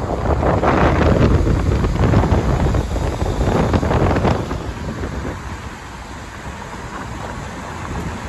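Wind buffeting the microphone over the rumble of a moving car, loud for the first few seconds and easing off after about five seconds.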